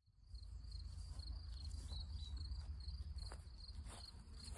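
Cricket chirping steadily in grass, about three chirps a second, fading in over a low rumble.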